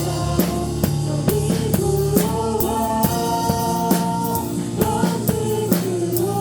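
Live worship band music: a drum kit keeps a steady beat of kick and snare strokes under sustained keyboard and bass notes.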